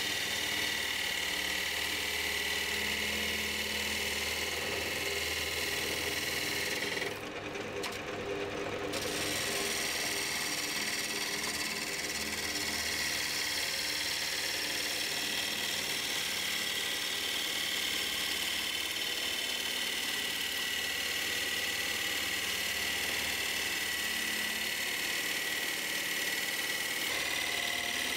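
Wood lathe running while a gouge cuts a spinning cherry bowl blank, a steady whirring and shearing as shavings peel off. The cutting sound drops away briefly about seven seconds in, then resumes.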